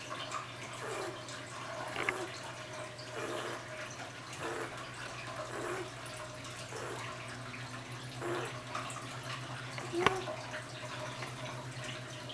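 Shih Tzu snoring in a steady rhythm, one soft snore about every second and a quarter. A sharp click about ten seconds in is the loudest sound.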